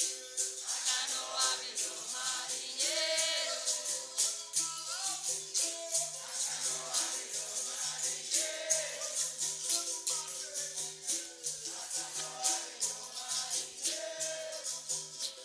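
Capoeira roda music: berimbau twanging in a steady rhythm that switches between two notes, with caxixi rattles and pandeiro jingles shaking over it and voices singing.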